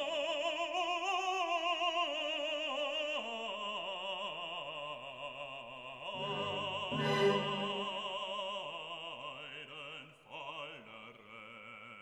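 Background classical music: an operatic voice holding long notes with wide vibrato, thinning out near the end.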